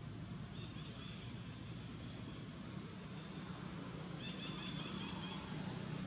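Steady high-pitched drone of insects, with faint short high chirps twice: about half a second in and again about four seconds in.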